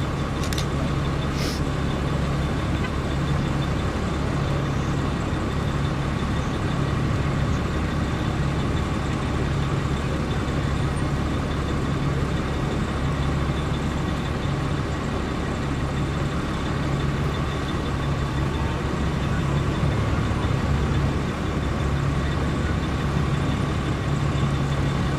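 A slow line of police cars and other vehicles driving past, their engines and tyres heard over a steady low drone.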